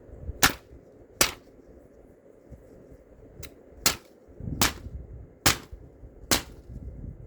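A series of about seven short, sharp snaps, spaced irregularly, the later ones roughly a second apart: a freshly sharpened straight razor cutting through material in quick strokes.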